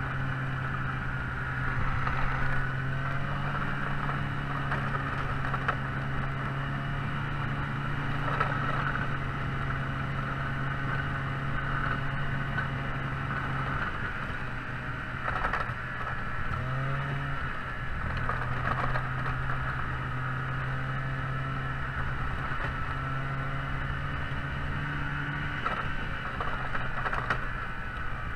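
An engine running at a steady speed with a constant hum. About halfway through its pitch drops away, briefly goes higher, then settles back to the steady hum.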